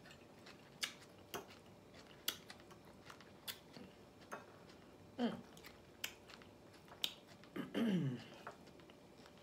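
Chewing of raw cabbage and celery: irregular sharp crunches roughly once a second, with two brief hums that fall in pitch, about five and eight seconds in.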